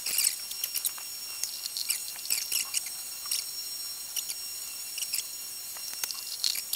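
Irregular light clicks and scrapes of the plastic airbox lid on a 2023 Yamaha MT-10 as it is handled and pressed down into place over the air filter, with a steady high whine underneath.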